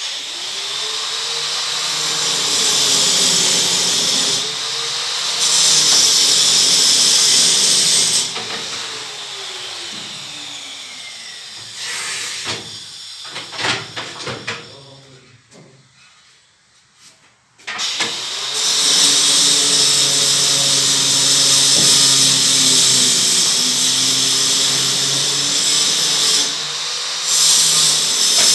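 Handheld power drill running in long stretches, its motor pitch wavering as the load changes. Midway it slows with a few knocks, stops for about three seconds, then starts up again.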